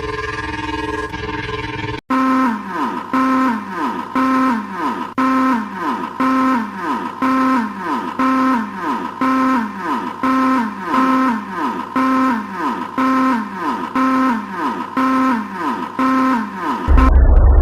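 A siren repeating a pitched pattern about once a second: a held tone that then falls away in pitch. It comes in about two seconds in after a different steady, chord-like tone, and near the end it cuts to a loud low rumble.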